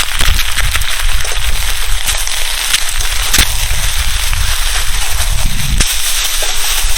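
Mixed vegetables frying in hot oil in a pan, sizzling and crackling with scattered pops and a few sharper clicks, over a steady low rumble.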